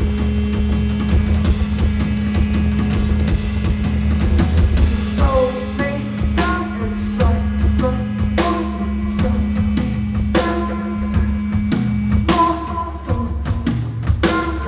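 Live band music led by a drum kit, with repeated drum and cymbal hits over a sustained low drone. Melodic pitched notes join in about five seconds in.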